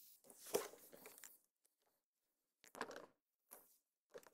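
Hand screwdriver starting screws into a plastic motorcycle saddlebag lid and speaker cut-kit ring: a few faint, short clicks and scrapes, one about half a second in and a few more near three seconds and near the end.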